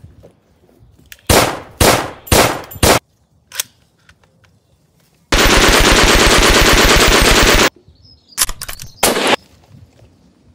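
Machine-gun gunfire sound effects: four single shots in quick succession, then after a pause a continuous rapid burst of about two and a half seconds, and a few more shots near the end.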